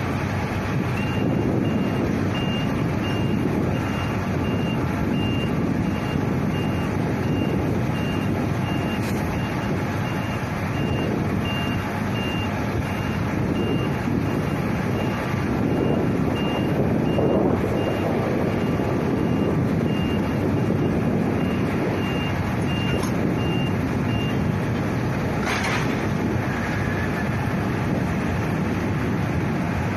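A vehicle's reversing alarm beeping over and over at a steady pace, stopping a few seconds before the end, over the steady rumble of aircraft and ramp machinery during an airliner pushback.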